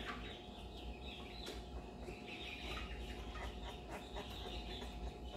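Twelve-day-old basset hound puppy squeaking and whimpering in short, high, repeated calls while held in a hand.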